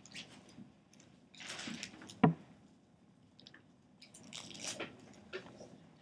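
Dry-erase marker scratching across a whiteboard in short strokes, in two spells of writing, with one sharp knock just over two seconds in.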